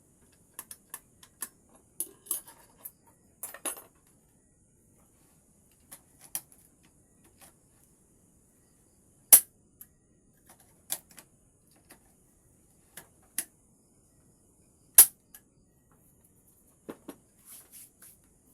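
Irregular clicks and light taps of hard parts being handled, with two much louder sharp knocks, one about halfway through and one about three-quarters through.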